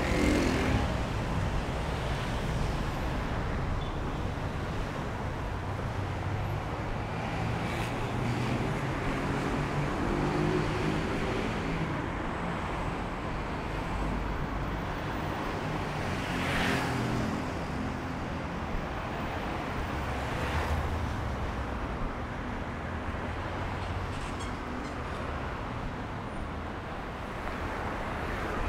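Road traffic on a busy multi-lane city avenue: a steady rumble of engines and tyre noise, with passing cars and trucks swelling and fading several times.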